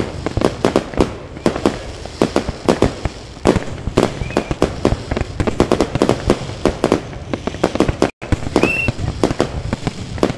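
Fireworks display: a rapid, irregular string of sharp bangs and cracks from bursting aerial shells, several a second, over a continuous low rumble.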